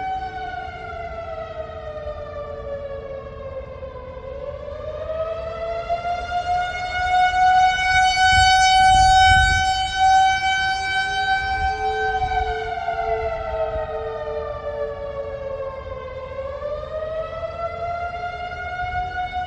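Warning siren wailing slowly. Its pitch falls for about four seconds, rises again, holds high for several seconds, then falls and rises once more. A low rumble comes in near the middle, where it is loudest. Sounded as the alarm for an earthquake mock drill.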